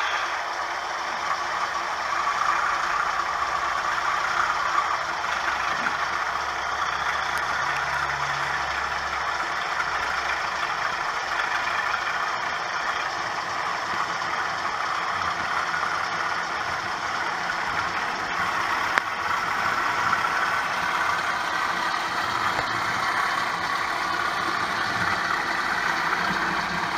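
DCC sound decoder in an OO gauge model train playing a diesel engine running steadily, heard through the model's small speaker, thin with little deep bass.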